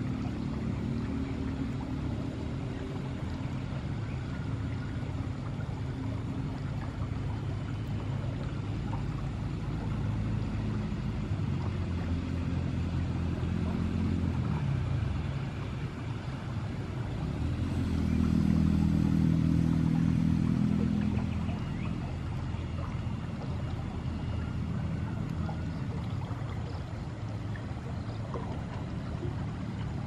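An engine running steadily at a low pitch. Its pitch slides down about halfway through, then it grows louder for a few seconds before settling back.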